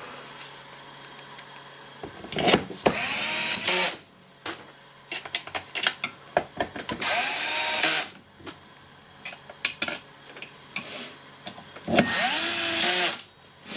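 Cordless electric screwdriver driving the housing screws in three short runs of about a second each, its motor pitch gliding up as it starts and down as it stops, with small clicks of handling the parts in between.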